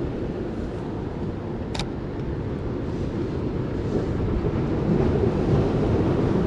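Sea surf washing against the rocks with wind on the microphone: a steady low rumble that swells a little in the second half. One sharp click a little under two seconds in.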